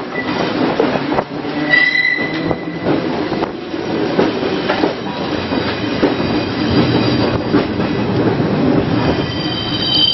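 Electric streetcar running along its track, heard from aboard: a steady clattering rumble of steel wheels on rail with the car rattling, and brief high-pitched wheel squeals about two seconds in and again near the end.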